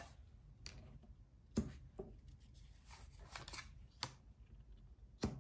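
Tarot cards being drawn from the deck and laid down on a table: a handful of soft, uneven taps and slides of card on card.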